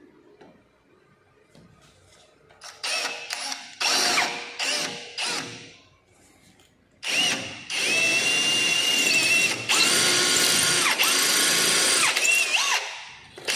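AEG power drill drilling into the wall: about four short bursts of the motor, then a long steady run of about six seconds whose speed dips briefly twice near the end.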